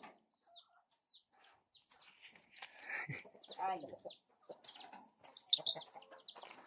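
Chickens clucking softly in a string of short, scattered calls.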